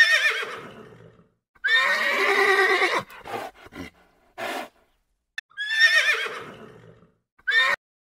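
Horse whinnying several times: a quavering whinny that falls in pitch at the start, a longer one about two seconds in, and another about five and a half seconds in, with short calls between them and near the end.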